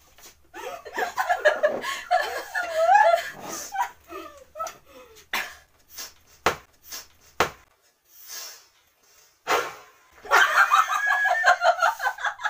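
Two women laughing and shrieking, with a few sharp knocks in the middle as a plastic water bottle lands on the table, then a burst of rapid, cackling laughter near the end.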